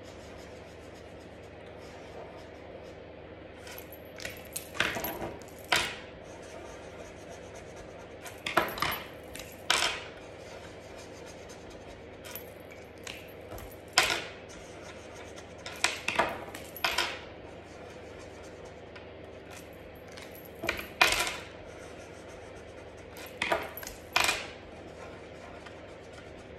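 Short clusters of clicks and taps every few seconds from plastic felt-tip markers being handled while she dots colour onto card: caps clicking off and on, and pens knocked down onto the tabletop. A steady faint hum lies under it.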